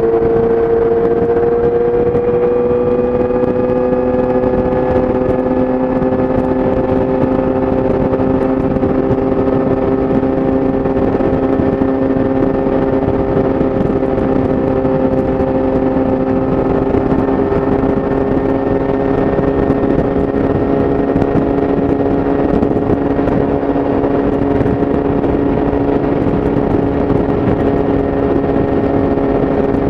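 Yamaha YZF-R6's inline-four engine through an Akrapovič exhaust at a steady highway cruise. Its pitch rises slightly over the first few seconds, then holds even, over a steady rushing noise.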